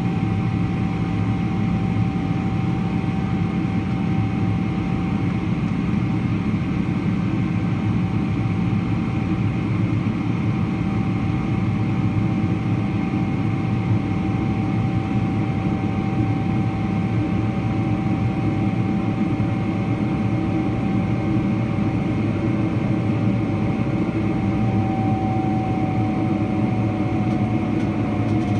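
A Boeing 777-300ER's GE90-115B turbofan engines and airflow heard from inside the cabin in flight: a steady, deep drone with a held whine over it that dips slightly in pitch near the end.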